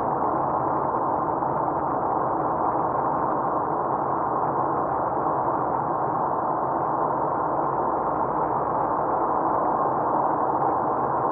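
Steady, even road and engine noise heard inside a moving car, a dull rush with no distinct tones or knocks.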